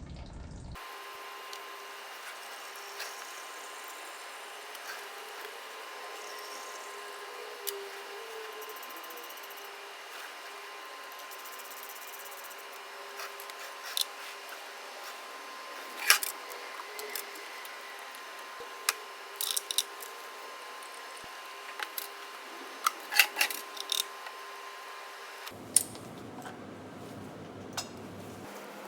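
Scattered sharp clicks and knocks of tools and parts being handled, clustered in the second half, over a steady hum that stops shortly before the end.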